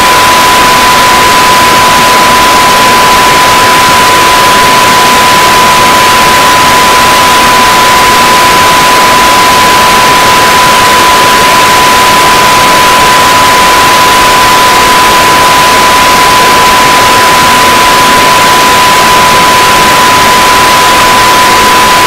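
Loud, steady static hiss with a continuous single-pitch beep tone held over it, unchanging throughout.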